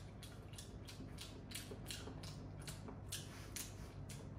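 Faint, wet mouth smacks of someone chewing a bite of cheese with the lips parting, about three a second. A low steady room hum lies underneath.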